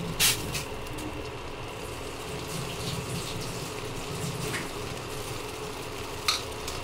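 Water heating and simmering in a steel pan around a block of instant Maggi noodles, a steady hiss, with a few sharp taps of a spatula against the pan, the loudest right at the start.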